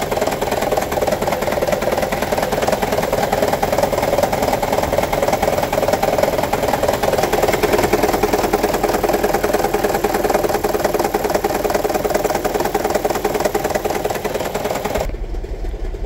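2009 Toyota Prius 1.5 hybrid's four-cylinder petrol engine running with a heavy, fast rattle from the engine bay, with cylinder No. 4 misfiring (fault code P0304). The rattle cuts off abruptly near the end, leaving a low hum.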